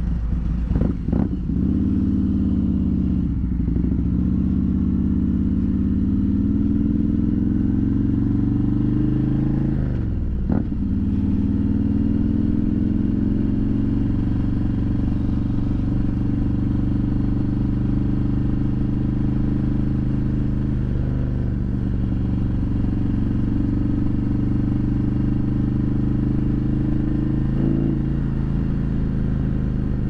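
Harley-Davidson Milwaukee-Eight 114 V-twin on a 2021 Road King Special pulling away from a stop and accelerating through the gears. The engine note rises and drops at shifts about three and ten seconds in, then settles into a steady cruise, heard from inside the rider's helmet.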